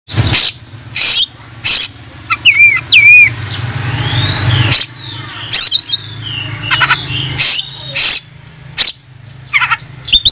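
Oriental magpie-robin (kacer) singing its aggressive rival-challenging song: loud, harsh rasping notes about once a second, broken by a few looping whistled phrases, over a low steady hum.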